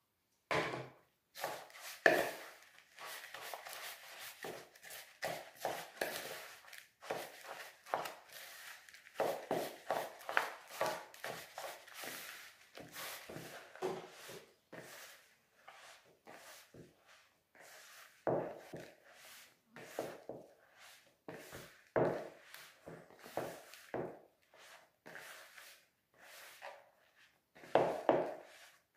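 Hands squeezing and kneading crumbly tapioca-starch dough in a plastic bowl: irregular squishing and rubbing, with a few sharper thumps.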